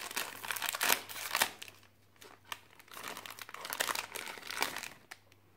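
Plastic blind-bag packet crinkling and crackling as hands tear it open, in two spells with a short lull about two seconds in.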